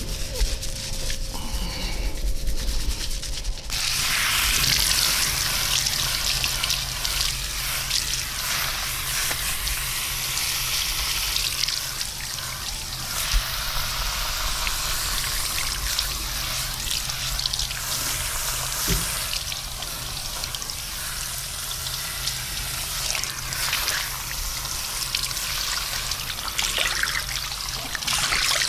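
Hands rubbing for the first few seconds, then water starts running steadily about four seconds in and keeps running.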